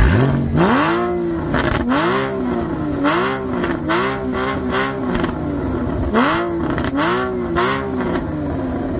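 Porsche Cayman engine revved in about seven quick throttle blips. On each blip the pitch climbs, sometimes holds briefly, then drops back. Sharp cracks come between the revs.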